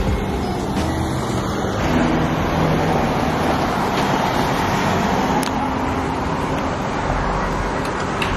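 A motor vehicle's engine running steadily, heard as a continuous rushing hum with a few light clicks.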